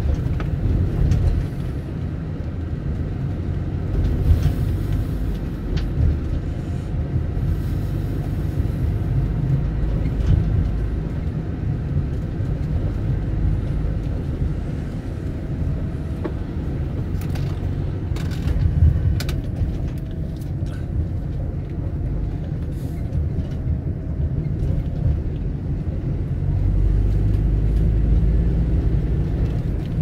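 Steady low vehicle rumble with scattered sharp clicks and knocks, swelling louder near the end.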